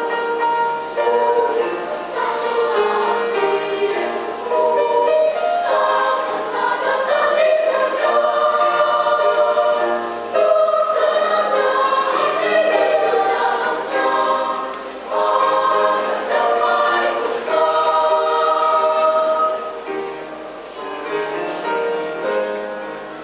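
Children's choir singing together in several parts, the sound easing down in the last few seconds.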